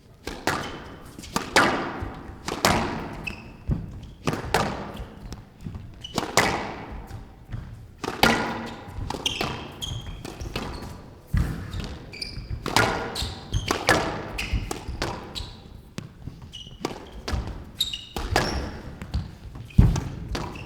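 Squash rally: the ball struck by rackets and hitting the court walls, a run of sharp, irregularly spaced knocks.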